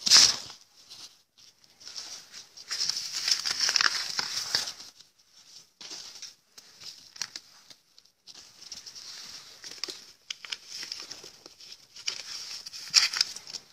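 Paper banknotes rustling and crinkling as a hand scoops them up and lets them fall back onto a pile, in bursts: a sharp one at the start, a longer one a few seconds in, and another near the end.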